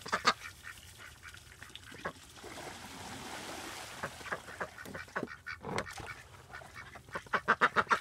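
Ducks quacking and honking while a plastic tub of water is tipped up, the water gushing out and splashing onto the ground for a couple of seconds near the middle, followed by a dull thump.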